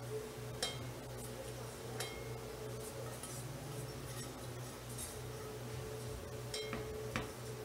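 Light clinks of a stainless steel pitcher against a stick blender and mixing bowl as lye solution is poured into soap oils, a few separate taps over a steady low hum.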